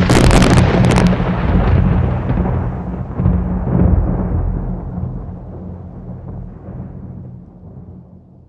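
Thunder: a sudden sharp crack, then a long rolling rumble that swells again about three to four seconds in and slowly dies away.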